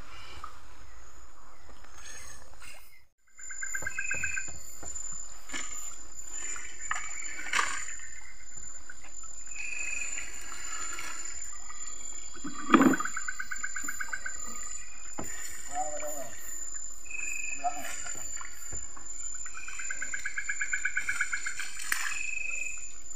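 Night chorus of insects and frogs: a steady high-pitched insect tone with repeated pulsing trills coming and going. A single loud knock sounds about thirteen seconds in.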